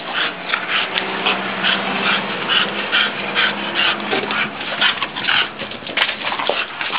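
A dog panting, about three breaths a second, with a low steady hum underneath from about one to four seconds in.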